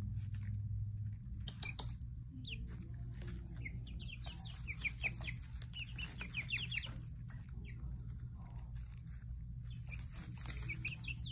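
Five-week-old chicks peeping: runs of short, high, falling peeps, busiest in the middle, over a steady low hum.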